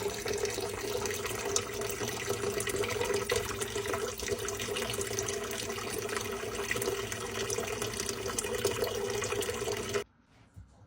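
Water running steadily, like a tap into a sink, which cuts off suddenly about ten seconds in.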